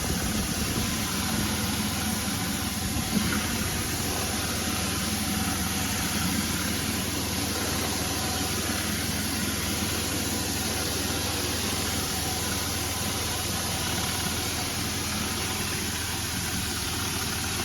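Pressure washer running steadily under load, its motor hum under a continuous hiss of water jetting onto a hard surface.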